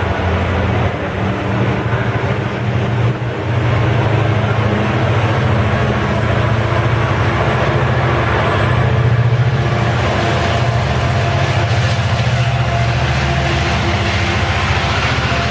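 Diesel-hauled Israel Railways double-deck passenger train passing close by, a loud, steady rumble of wheels on rail over a deep engine drone. It is loudest as the locomotive goes past about eight to ten seconds in, and grows more rattly after that.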